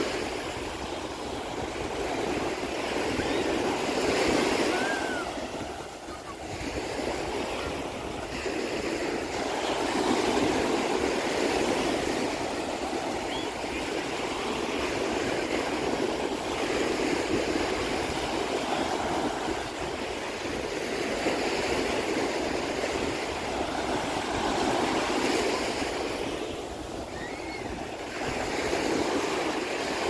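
Small ocean waves breaking and washing up the beach. The surf swells and fades every few seconds.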